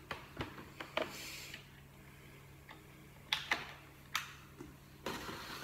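Scattered light clicks and taps of plastic kitchen containers and utensils being handled, about half a dozen in all, with a brief soft rustle about a second in.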